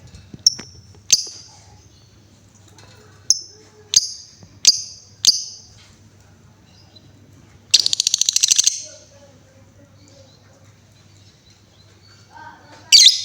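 Female lovebird calling: six sharp, high chirps over the first few seconds, then a rapid, typing-like rattle of ticks lasting about a second, and another loud call near the end.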